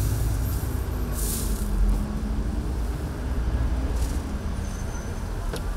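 Steady low rumble of street traffic, with a short hiss about a second in.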